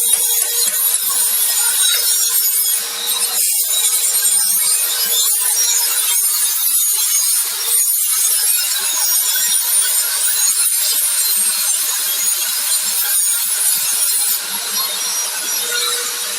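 Milling machine cutter working a workpiece: a continuous hissing, scraping cut. A faint steady hum runs under it for the first several seconds and returns briefly near the end.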